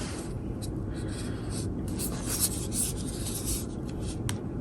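Rubbing and rustling as the protective material is peeled off a mini massage gun and the gun is handled in the hands, a series of short scratchy strokes with a single sharp click near the end.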